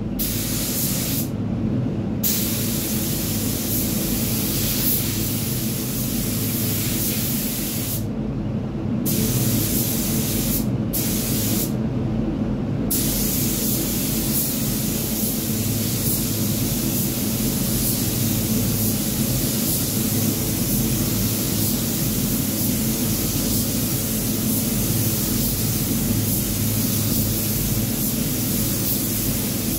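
Gravity-feed paint spray gun hissing as compressed air atomises paint onto a car bumper, with the trigger let off for a moment about a second in and a few more times between eight and thirteen seconds, then held on steadily. A steady low hum runs underneath.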